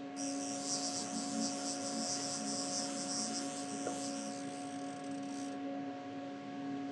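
Steady electrical hum of several tones, with a high hiss over it that cuts off about five and a half seconds in.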